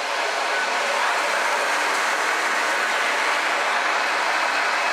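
Electric coconut grater running steadily while pieces of fresh coconut meat are pressed by hand against its spinning grating drum.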